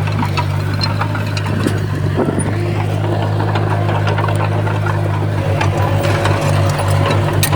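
Komatsu D20P bulldozer's diesel engine running steadily, with scattered clicks and clanks. The engine note starts to pulse rhythmically about three-quarters of the way in.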